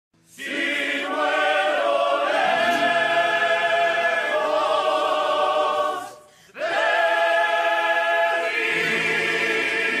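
Intro music of a choir singing long held chords; it breaks off sharply about six seconds in and starts again half a second later.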